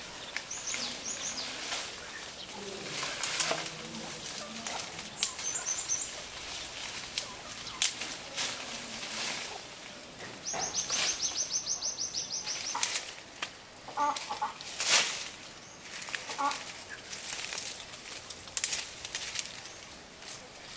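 Chickens clucking a few times in the second half, with a small bird's high chirps and a rapid high trill about halfway through, over scattered short rustling noises.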